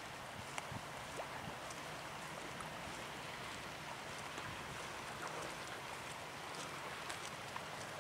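Steady harbour ambience: wind over the microphone and water lapping along the quay, with a few faint ticks.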